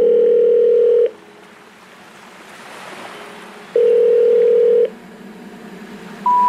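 Telephone ringback tone: two steady tones of about a second each, a few seconds apart, with a soft hiss between them. Right at the end a higher beep starts, the first note of a rising three-note telephone intercept tone.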